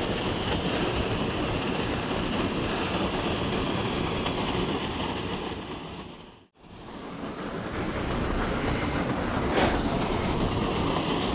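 Steady rushing of a small waterfall pouring into a pool, which dips away to silence about halfway through and then comes back.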